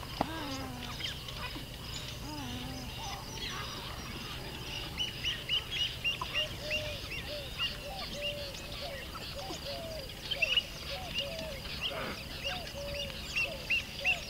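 Many birds calling: a steady stream of short, repeated calls with higher chirps above them, busier from about four seconds in.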